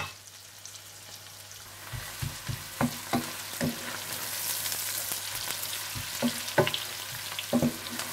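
Onions frying in butter and oil until golden brown, sizzling steadily, with short knocks and scrapes from about two seconds in as they are stirred. The sizzle grows stronger about halfway through.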